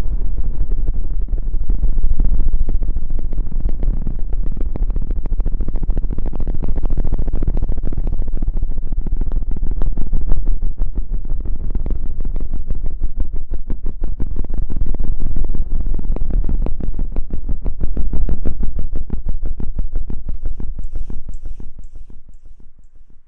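Close-up rubbing and scratching right on the microphone, a rapid continuous friction noise like scrubbing for an ASMR hair-washing effect, fading out near the end.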